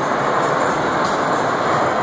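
Kiddie train ride running round its small circular track, a steady noise with music mixed in.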